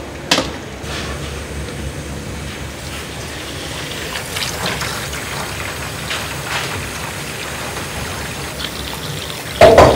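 Kitchen tap running into a stainless steel sink, water pouring and trickling over monkfish pieces being rinsed. A sharp click just after the start and a loud clunk near the end.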